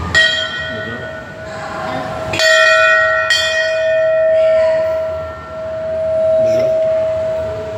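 Large hanging metal temple bell struck three times with its clapper, once at the start, then twice in quick succession a little over two seconds in. Its ring hangs on afterwards, slowly swelling and fading.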